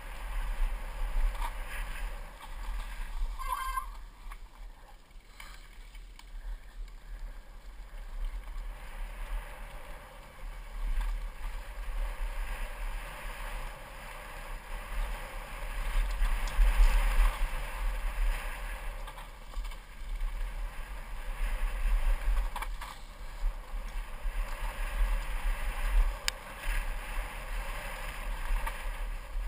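Mountain bike descending a dirt trail at speed, heard from a bike- or rider-mounted GoPro: steady low wind buffeting and the rushing rumble of tyres and frame over the dirt, swelling and easing with speed, with a few sharp clicks and knocks from bumps.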